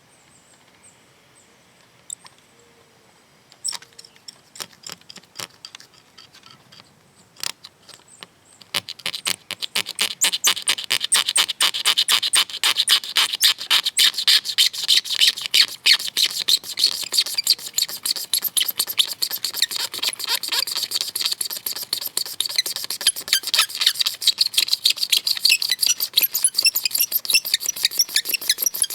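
A few scattered clicks, then from about nine seconds in a blade scraping cured windshield-repair resin flush off the glass: rapid, rasping back-and-forth strokes, many a second, that go on steadily.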